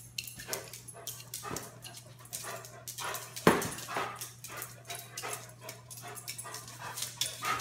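A small dog whining and giving short barks, with one sharper sound about three and a half seconds in, over a steady low hum.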